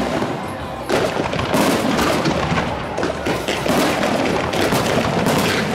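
Aerial fireworks shells bursting in rapid succession: a dense volley of bangs and crackling, with a strong burst about a second in.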